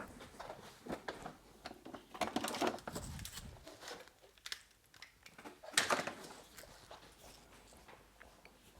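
Tools and parts being moved about on a workbench while someone rummages for a rubber mallet. Scattered clicks, rustles and light clunks, with one louder knock about six seconds in.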